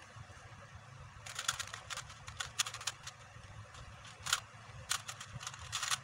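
Plastic speed cube being turned rapidly by hand, giving bursts of quick clicks and clacks as the layers snap round, starting about a second in.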